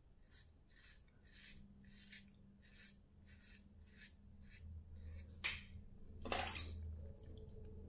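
Safety razor scraping through lathered stubble in short, faint strokes, about two a second. Near the end come two louder rubbing noises.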